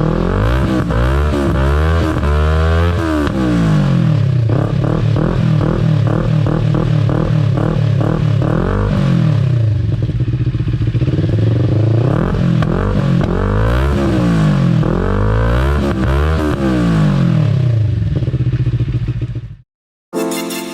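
CFMoto NK400 parallel-twin motorcycle engine with an aftermarket Akrapovic slip-on canister, its exhaust note rising and falling again and again as it revs up and drops back. It cuts off abruptly near the end, and music starts.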